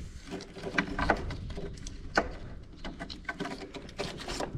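Scattered clicks and light knocks from hands handling a car's wiring harness and its plastic connectors, a few sharper snaps among them.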